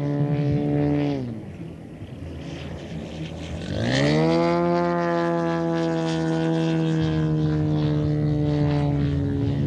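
Petrol twin engine and propeller of a giant-scale RC model aircraft. It runs steadily, the pitch drops as the throttle comes back about a second in, then rises again around four seconds in to a steady high run.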